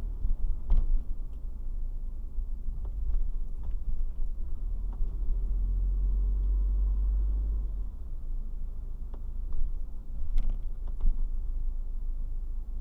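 Low, steady rumble of a car driving slowly, heard inside the cabin through a dashcam's built-in microphone, with a few short knocks and rattles, one about a second in and a couple near the end.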